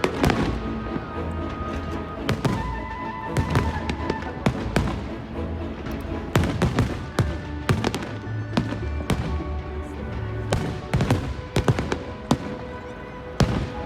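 Fireworks bursting, many sharp bangs at irregular intervals, some in quick clusters, over music with steady held notes and a low bass line.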